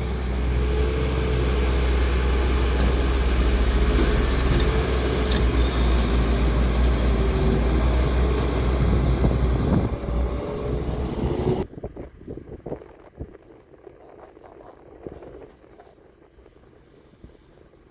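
Heavy earthmoving machinery (excavator or dump truck) running with a loud, steady diesel drone and rumble. It stops abruptly about twelve seconds in, leaving only faint clicks and rustling.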